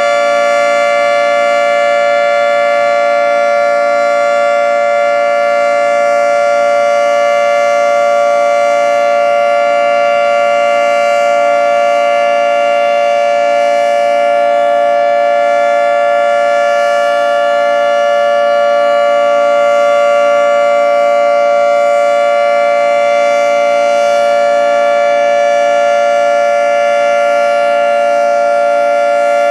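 Federal Signal 2T22 omnidirectional dual-tone siren sounding the steady alert signal: two held tones a little apart in pitch, sounding together at a constant loud level with no rise or fall.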